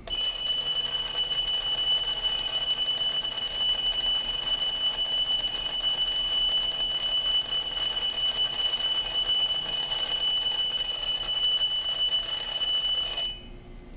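Battery-powered mantle alarm clock's old-fashioned bell alarm ringing continuously, its hammer rattling rapidly on the metal bell, then cutting off suddenly near the end.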